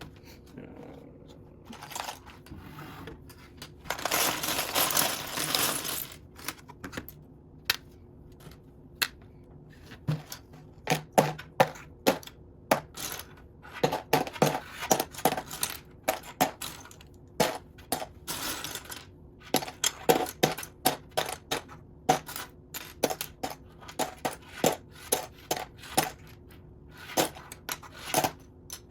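Loose plastic Lego pieces clattering and clicking as hands sift and rake through a pile of them. There are two longer rattling rushes, about four seconds in and again past the middle, when many pieces shift at once.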